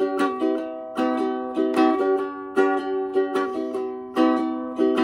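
Bonanza Homestead ukulele strummed in a rhythmic pattern, its chords ringing on between the strokes.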